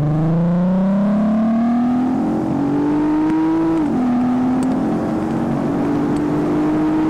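Volkswagen Golf R32's 3.2-litre VR6 engine through a Scorpion non-resonated exhaust, heard from inside the cabin, revving up under hard acceleration. The pitch drops sharply at an upshift about four seconds in, then climbs again. It is loud enough to distort the recording.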